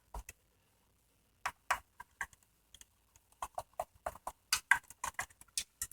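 Irregular light clicks and taps of hard plastic Roomba parts and screws being handled and set down during disassembly, sparse at first and coming more often from about halfway through.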